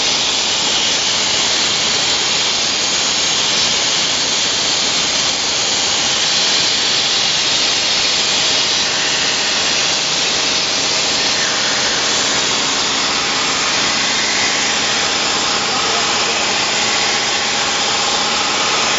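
Rotary glass-bottle beer filling machine running: a steady, loud hissing machinery noise with faint steady tones underneath.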